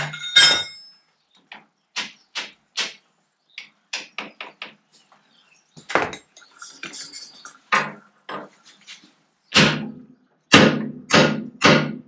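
Hammer blows on steel: over a dozen sharp, irregular strikes, some ringing briefly, the heaviest and quickest near the end. They come from working loose the worn brake and clutch shaft of a Fordson Major tractor.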